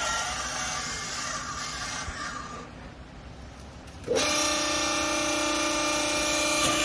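Hydraulic baler machinery running: a hissing noise for the first two to three seconds, then about four seconds in a loud, steady whine with a buzzing edge starts suddenly and holds.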